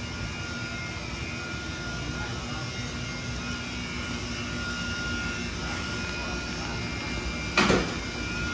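Steady background machinery hum with a couple of faint steady tones. About seven and a half seconds in, a brief, loud sound sweeps quickly downward in pitch.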